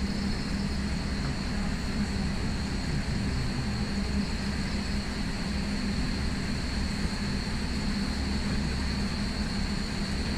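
Night Safari tram running steadily along its track: a low rumble with a steady hum and a thin, steady high-pitched tone above it.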